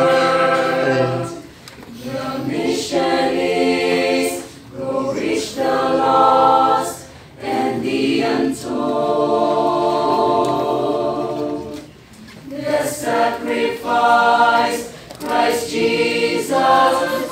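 Small choir singing a sacred song in sustained phrases, with brief breaks between phrases.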